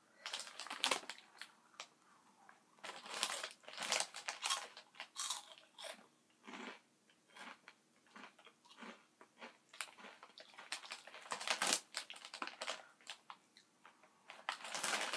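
Funyuns onion-flavoured corn snack rings being bitten and chewed: a run of irregular, sharp, dry crunches.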